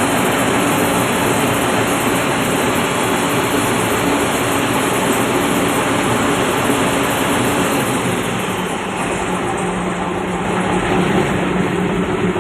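Ship's emergency diesel generator engine running steadily, a loud, dense engine-room noise, easing a little about eight seconds in.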